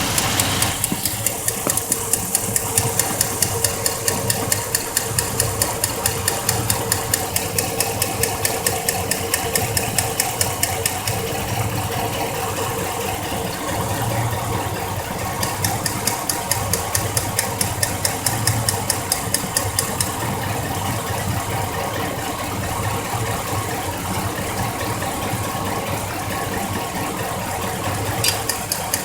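2004 Chevrolet Silverado engine idling with a sharp, regular ticking of a few beats a second that fades and returns. It sounds like lifter tick, but it comes from a loose spark plug: the metal heat shield on the plug boot rattles against the block.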